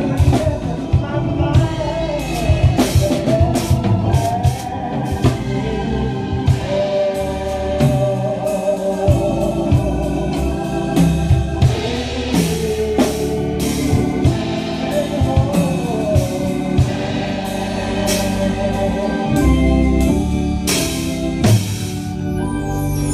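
Live gospel praise music: a drum kit played with frequent cymbal crashes, over organ and a voice singing.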